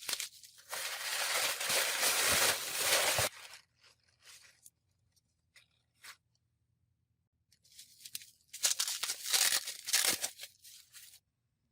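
Packaging being torn open by hand: two long stretches of tearing, the second near the end, with small rustles and clicks between.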